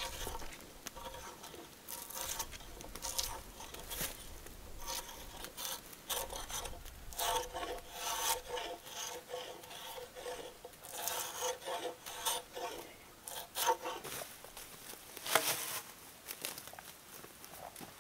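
A long wooden log scraping and rubbing as it is dragged and handled, mixed with footsteps rustling through dry fallen leaves, in short irregular bursts.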